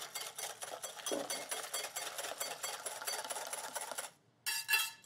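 Wire whisk beating egg yolks in a glass bowl while hot cream is poured in, tempering the yolks for a custard: a fast, steady clatter of the wires against the glass. It stops about four seconds in, followed by two short ringing clinks.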